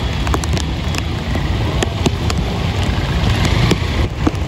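Vehicle engines running with a steady low rumble in heavy rain, with scattered sharp ticks of raindrops striking the camera.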